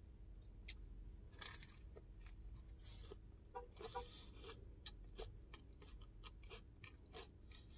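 Quiet, close-up chewing of a mouthful of crunchy-crusted fried chicken sandwich: soft crunches and small wet mouth clicks scattered through.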